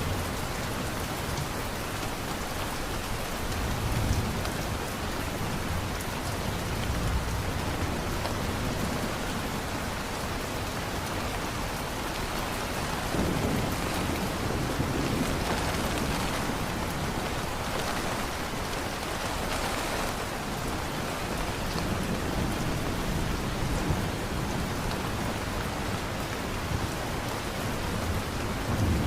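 Steady heavy rain, with low rumbles of thunder swelling up a few times, the longest about halfway through.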